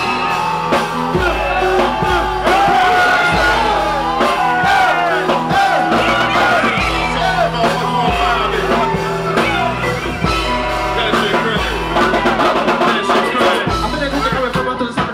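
A man singing live into a handheld microphone over loud music with a deep bass line and a beat.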